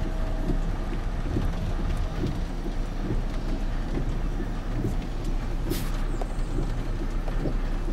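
Wind buffeting the microphone through an open car window: a steady low rumble with a hiss of wind and rain, and one brief louder gust near six seconds in.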